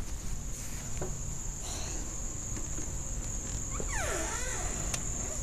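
Insects trilling steadily outdoors, a continuous high-pitched drone of the cricket kind. About four seconds in, a short call falls quickly in pitch over it, with a few faint clicks scattered through.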